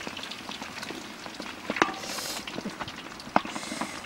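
Fish frying in beaten duck eggs in a large wok, sizzling and crackling, while a wooden spatula stirs and scrapes through it, with a couple of sharp clicks.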